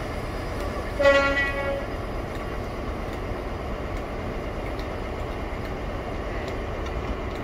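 Class 43 HST power car sounding a short toot on its horn about a second in, over the steady low rumble of its diesel engine as it moves slowly along.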